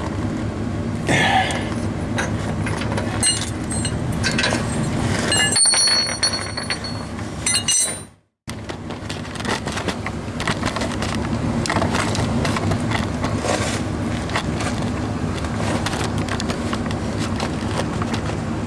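Ratchet wrench on an oxygen sensor socket snugging a new oxygen sensor into the exhaust pipe, with metal clicks and clinks, some ringing high, over a steady low hum. The sound cuts out abruptly for a moment about eight seconds in.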